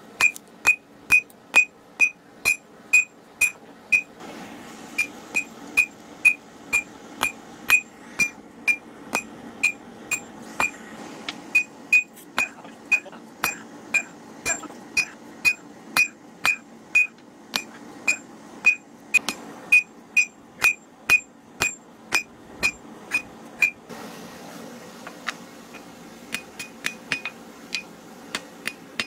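Hand hammer forging a red-hot steel kukri blade on an anvil: steady blows at about two to three a second, each with a bright ring from the anvil. Near the end the blows turn lighter and come in quick clusters.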